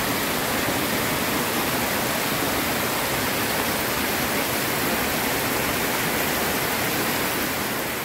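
Mountain waterfall, its falling water making a steady, even rush, heard close to the fall.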